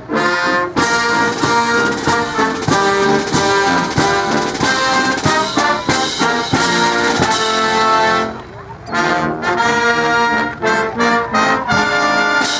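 Brass-led music with a steady beat, which drops out briefly about two-thirds of the way through and then resumes.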